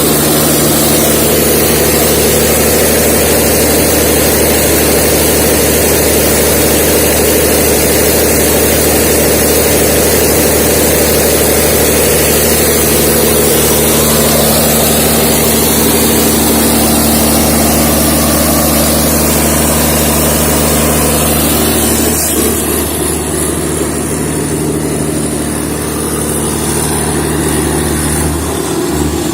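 Large Perkins diesel generator set running at a steady speed, a loud even drone with a constant pitch. It gets a little quieter about three-quarters of the way through.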